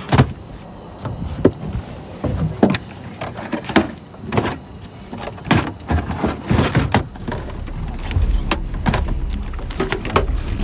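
Scattered knocks and clatters of feet and gear on a boat deck as the crew moves about and handles ropes and equipment, over a low rumble that grows louder near the end.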